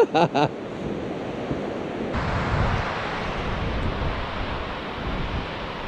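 Small surf washing onto a beach, with wind rumbling on the microphone. About two seconds in the sound changes suddenly, becoming louder and hissier.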